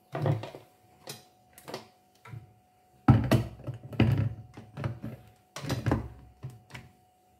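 Hard plastic knocks and clatter from an electric mini chopper's motor unit being fitted onto its bowl and lid, several separate knocks with the loudest about three seconds in. The motor is not running.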